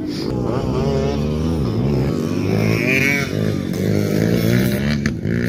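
Dirt bike engine revving up and dropping back several times as the bike comes along a dirt track toward the listener.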